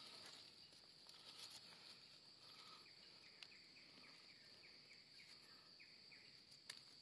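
Faint forest ambience: a steady high-pitched insect drone, with a run of short falling chirps from about two and a half to six and a half seconds in, and a few faint clicks.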